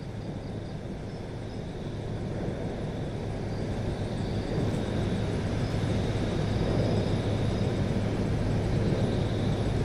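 A steady low rumbling noise that grows gradually louder.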